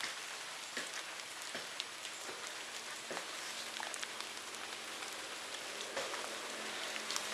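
Steady patter of light rain, with many small scattered ticks of single drops.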